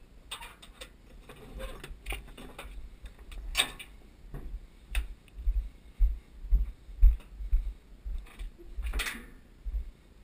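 Metal clanks and clicks of the steel latches on a tipper truck body's tailgate and drop sides being worked, several sharp knocks spread out over the stretch, the loudest about three and a half seconds in and again near the end, with low thumps underneath throughout.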